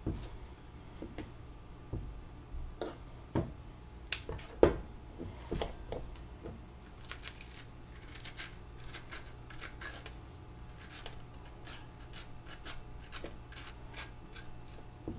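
Kitchen handling noises during food prep: a few scattered knocks and clatters, the loudest about four and a half seconds in, then a run of light scraping and clicking.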